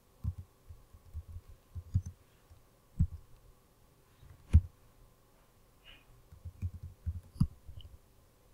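Computer keyboard being typed on: short, irregular runs of key clicks, with a few louder single key strikes.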